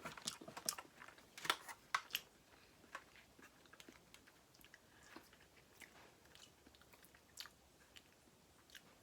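A person chewing and biting seafood-boil food, lobster among it, close to the microphone: wet clicks and smacks that come quickly for the first two seconds, then sparser.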